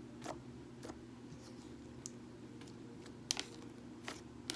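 Thick homemade glue slime being worked by hand, giving irregular sharp clicks and pops, about six in a few seconds, the loudest a little past halfway, over a steady low hum.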